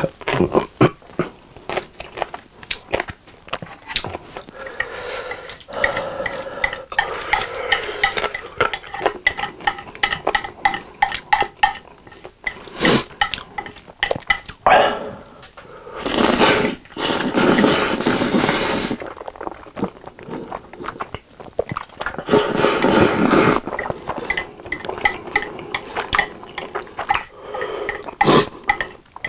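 Close-miked mukbang eating sounds of Carbo Buldak fried noodles: wet chewing and mouth smacks, with chopsticks clicking and scraping against the bowl. Two long, loud noodle slurps come in the middle.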